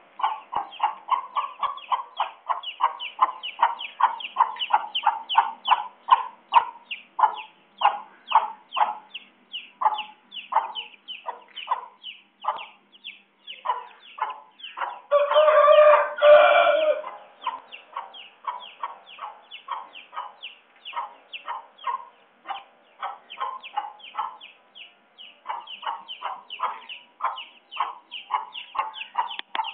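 A rooster clucking in a rapid, steady series of short calls, about three a second. About 15 seconds in it crows once, a loud call lasting nearly two seconds.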